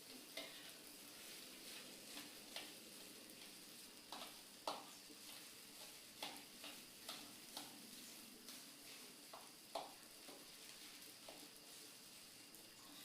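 Near silence: a steady hiss with about a dozen faint, short clicks or chips scattered through it, the loudest a little under five seconds in and just before ten seconds.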